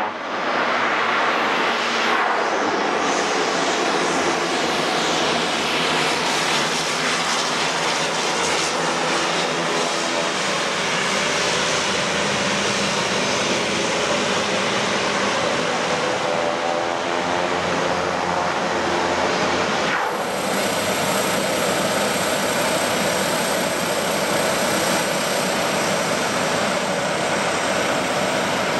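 A twin-engine turboprop plane's engines and propellers running loud and steady as the plane lands and taxis. About two-thirds of the way through the sound changes abruptly: the low rumble drops out and a steady high whine comes in.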